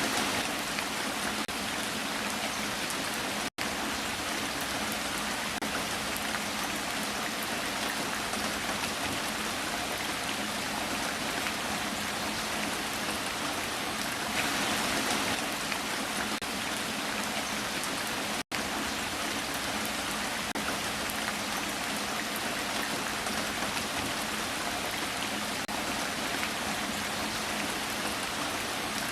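Heavy rain falling steadily, an even hiss of drops on surfaces. The sound cuts out completely for an instant twice, a few seconds in and again past the middle.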